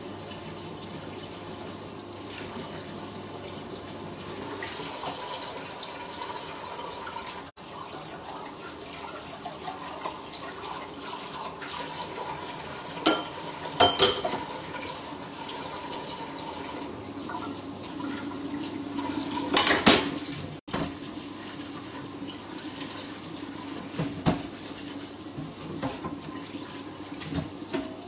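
Water running steadily in a kitchen, with a few sharp clatters of dishes or utensils about halfway through and again about two-thirds of the way in.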